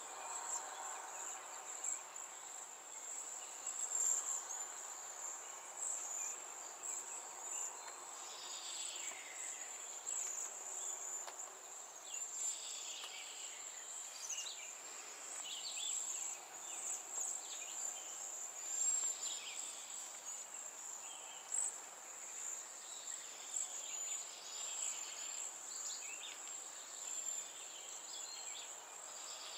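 A steady, high-pitched insect trill, typical of crickets, runs throughout. Scattered bird chirps and short downward-sliding calls sound over it.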